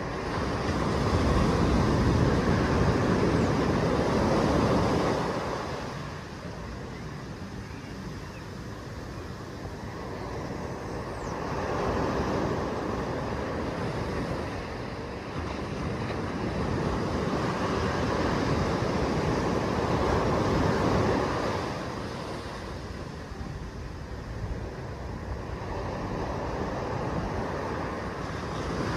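Small surf breaking and washing up a sandy beach, a steady hiss of water that swells and fades in three slow surges.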